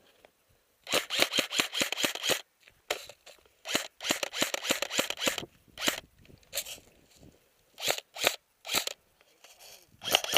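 Airsoft rifle firing in quick full-auto bursts, sharp snapping shots at about eight a second, the longest burst about a second in, followed by several shorter bursts and single shots.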